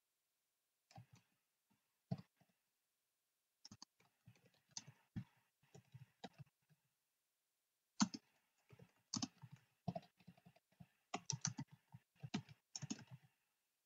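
Typing on a computer keyboard: quiet key clicks in uneven runs with short pauses between.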